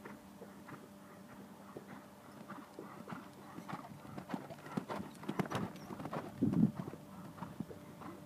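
Hoofbeats of a ridden horse moving over a sand arena, growing louder as the horse comes close and then fading as it moves away. A short, louder low sound comes about six and a half seconds in.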